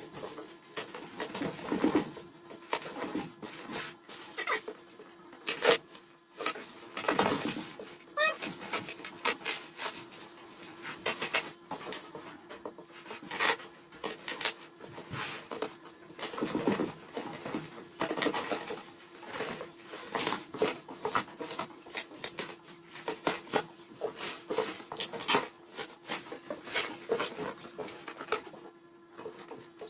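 A box being opened and unpacked by hand: irregular rustling, scraping and clicks of cardboard and packaging, over a steady low hum.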